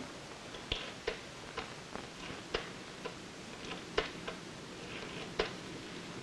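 Rotary-dial desk telephone being dialled: the dial is wound round and let run back, digit after digit, giving sharp clicks at uneven spacing with a louder click every one to one and a half seconds.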